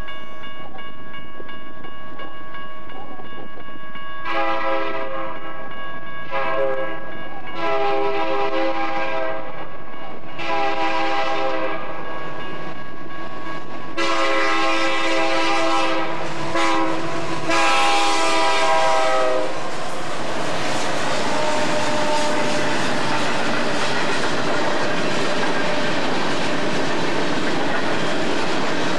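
BNSF diesel locomotive's air horn sounding a series of long and short blasts as the coal train approaches. From about 20 seconds in the train runs past, its wheels clattering steadily over the rail joints.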